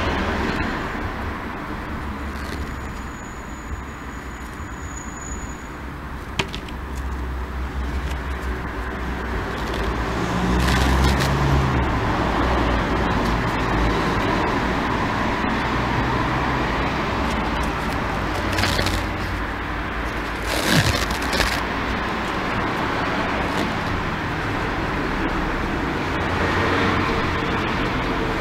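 Steady road traffic noise in the background, with a few brief crackles as a roll of camouflage cohesive tape is unrolled and handled.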